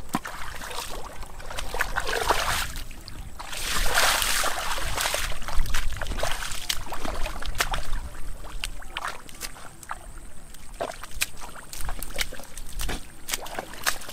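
Shallow muddy water sloshing and splashing as a person wades and gropes through the mud by hand, with irregular swishes and wet clicks, loudest about four seconds in.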